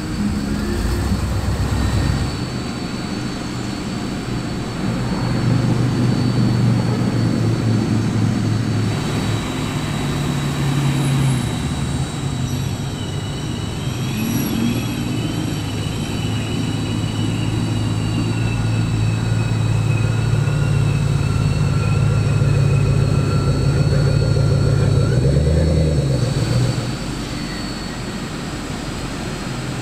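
A line of Ford Mustangs driving slowly past at low revs, their engines running steadily, with a short rise in pitch about 25 seconds in before the sound drops away.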